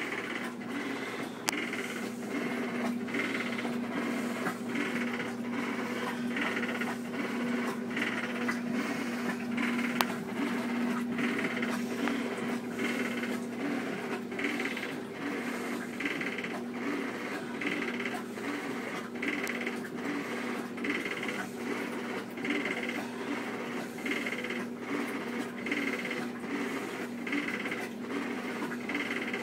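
Whirlpool Cabrio washing machine agitating, with a steady hum and a rattle that pulses about three times every two seconds with the wash strokes. The rattle comes only when it washes, not during spin, and the owner suspects the bearings.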